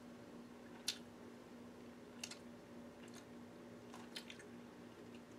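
A few faint, short crackles as a fried chicken drumstick is picked and pulled apart with the fingers, over a steady faint hum.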